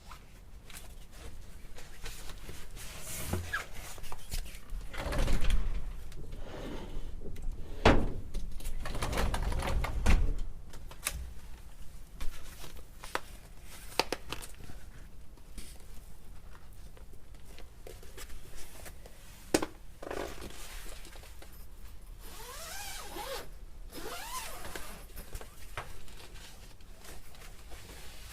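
Handling noises while pitching a tent and a poncho tarp: rustling fabric, irregular knocks, a few heavier thumps in the first third, and zip-like rasping sweeps near the end.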